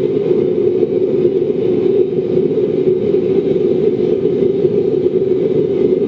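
Waste oil burner running at a low setting, fed forced air by a 12-volt bilge blower: a steady, even rush of flame and air with a strong low hum.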